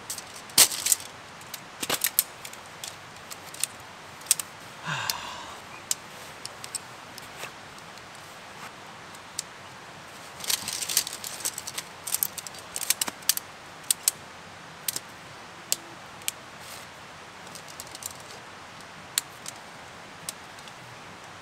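Alps Mountaineering Helix 2 tent poles and plastic pole clips clicking and rattling as the dome tent is pitched and its body clipped to the poles. Sharp clicks come scattered throughout, in denser clattery runs about half a second in, around two seconds, and again from about ten to fourteen seconds, with a brief pitched sound near five seconds.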